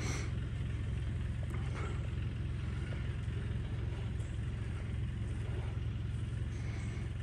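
A steady low engine rumble, like a vehicle idling.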